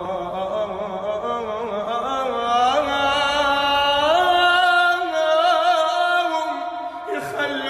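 Arabic song: a singer draws out a long, ornamented vowel that wavers and bends in pitch, over a musical backing, with no distinct words.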